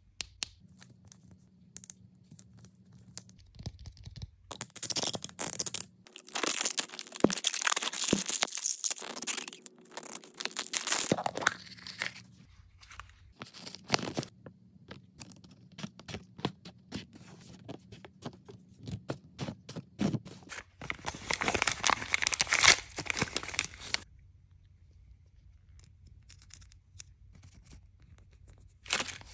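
Plastic toy capsule packaging being unwrapped by hand: two long stretches of tearing and crinkling of plastic wrappers, one a few seconds in and one about two-thirds through, with scattered clicks and taps between them.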